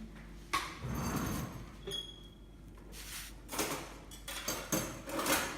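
A utensil scraping and clinking against a bowl and plate while spreading chocolate icing on biscuits: a bump and rustle about half a second in, then a run of short scrapes in the second half.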